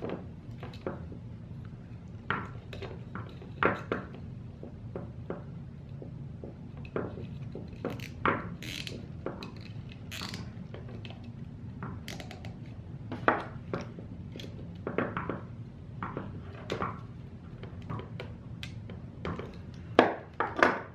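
Nylon zip tie being threaded and pulled tight on a quadcopter's plastic frame plate: scattered light clicks and rattles of plastic being handled, with a couple of louder clicks near the end, over a low steady hum.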